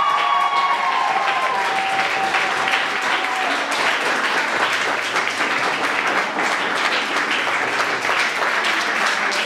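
Sustained applause from a theatre audience and cast, a dense steady clapping, with voices cheering over it for the first three seconds or so.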